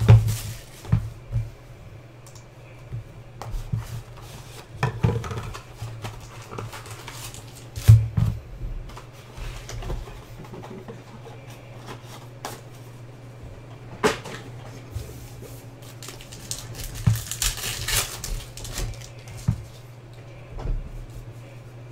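Hands opening a Luminance football card box and handling its foil-wrapped packs and cards: scattered taps, knocks and rustles, with a longer crinkling rustle about three-quarters of the way through. A low steady hum lies underneath.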